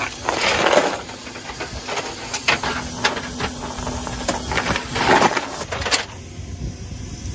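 A belt of linked machine-gun cartridges clinking and rattling as it is handled and fed into an ammunition box: irregular metallic clatters and clicks, loudest about a second in and again about five seconds in.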